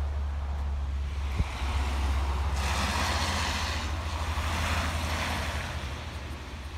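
Wind buffeting the microphone as a heavy low rumble. About two and a half seconds in, a rushing hiss grows louder over it.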